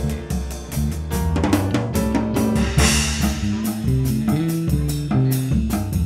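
Live jazz-funk groove led by a drum kit, with snare and rimshot hits over a steady bass-drum pulse and a cymbal crash about three seconds in, backed by bass and piano.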